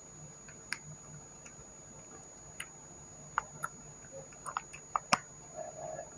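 Scattered light clicks and taps of small lamp parts being handled and unpacked, at irregular times, with the sharpest click about five seconds in.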